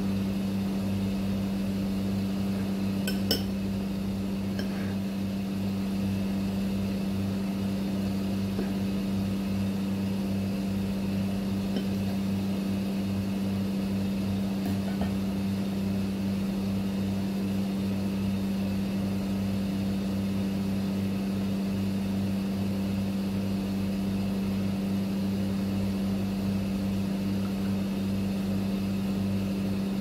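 Steady electrical hum of a running appliance, even in level, with a single light click about three seconds in.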